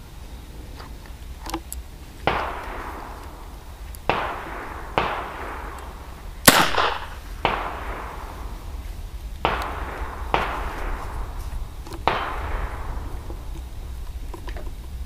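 Gunshots, about eight sharp reports a second or two apart, each trailing a short echo, the loudest and sharpest about six and a half seconds in. Among them is a single shot from a suppressed single-shot .22 LR pen gun; the other reports come from other guns firing.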